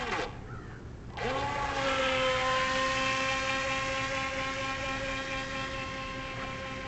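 The electric motor of a Feilun FT009 RC speedboat whining as it throttles up about a second in. The pitch rises quickly, then holds steady while the sound slowly fades.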